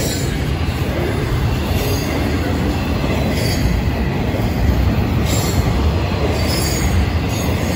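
Double-stack intermodal freight cars rolling past close by with a steady, loud rumble of steel wheels on rail. Several short high wheel squeals flash over it.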